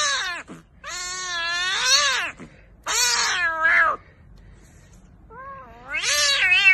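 Kitten meowing loudly: a run of four long, high-pitched cries of about a second each, with short pauses between.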